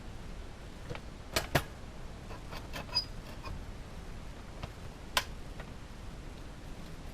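A few sharp clicks and knocks from objects being handled: two close together about a second and a half in, one with a short ping about three seconds in, and another about five seconds in, with fainter ticks between them.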